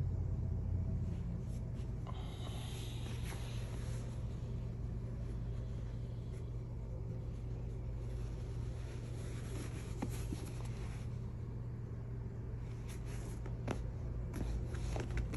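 A horsehide leather jacket being handled: occasional soft rustles and a few short clicks over a steady low hum.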